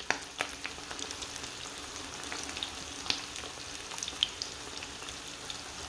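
Four eggs frying in a pan over medium heat: a steady sizzle with scattered small pops and crackles.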